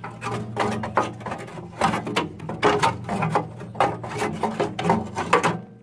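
Repeated short clatters and scrapes of generator parts and tools being handled, about two a second and uneven, over a steady low hum.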